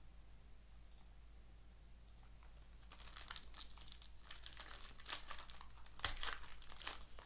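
A trading-card pack's plastic wrapper being torn open and crinkled. It is quiet at first, and the crackling starts about three seconds in and is busiest near the end.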